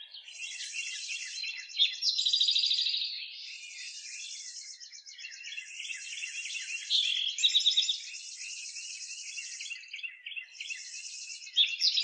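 A dense chorus of small birds chirping, with high buzzy trills over it. Louder runs of rapid chirps come about two seconds in, about seven seconds in, and again near the end.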